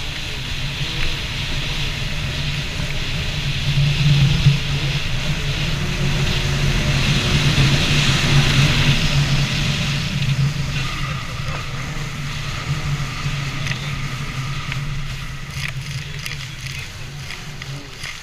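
Yamaha EX Sport jet ski engine running steadily under way, with a hiss of wind and water. It grows louder toward the middle, then fades toward the end.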